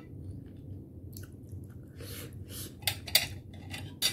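Close-up eating sounds: chewing and fingers handling soft dumplings on a plate, heard as a string of short crackly smacks. They grow louder from about three seconds in, the loudest right at the end as a momo is picked up. A low steady hum runs underneath.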